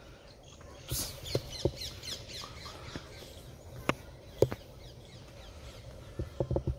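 Birds calling, with a burst of quick falling chirps and squawks about a second in, over a steady low background rumble. Several sharp taps are scattered through.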